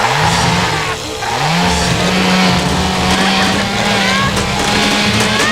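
A motor engine running loudly, its pitch rising about a second and a half in and then holding steady, with short high squeals gliding over it.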